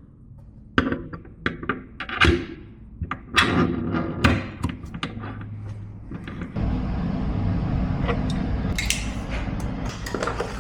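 Knocks and clicks of hard parts being handled and set in place, likely the pitcher rinser's valve assembly. About two-thirds of the way in, a steady rushing noise starts and keeps going.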